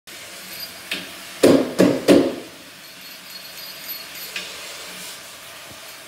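A stainless steel strainer tray knocking against a steel sink: three loud knocks about a third of a second apart, after a lighter one.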